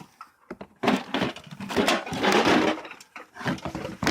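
Objects being handled and rummaged through in a container: a few sharp clicks about half a second in, then about two seconds of continuous scraping and rustling, and more rattling near the end.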